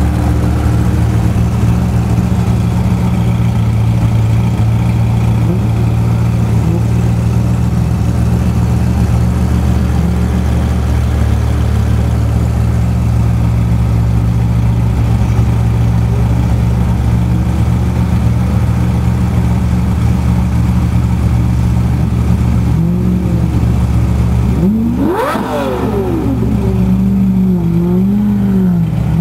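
Ferrari F40's twin-turbo V8 idling steadily close by. About 25 seconds in an engine revs sharply once, then its note rises and falls unevenly near the end.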